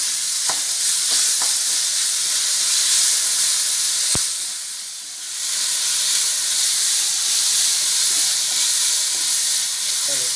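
Chopped onion, capsicum and tomato sizzling in coconut oil in a pan while being stirred with a spoon. There is one sharp knock about four seconds in, and the sizzle dips for about a second just after it.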